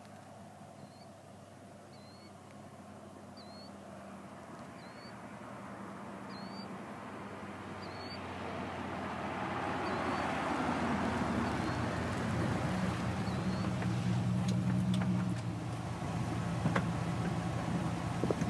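A motor vehicle running and growing steadily louder as it draws near, with a low engine hum under the road noise. In the first half, short high chirps repeat about every 0.7 seconds; a few sharp clicks come near the end.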